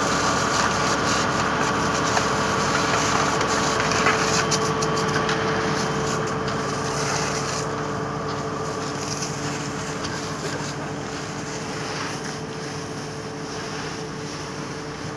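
Fire truck's engine and pump running steadily, a constant hum under a broad hiss, growing slightly fainter in the second half.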